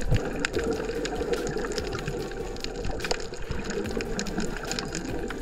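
Underwater sound over a coral reef as heard on a submerged camera: a muffled, steady rush of water with many sharp clicks and crackles scattered throughout.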